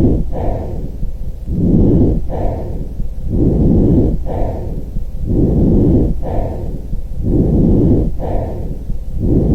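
Lung breath sounds heard through a stethoscope: a low, noisy sound of breathing in and out, repeating about every two seconds.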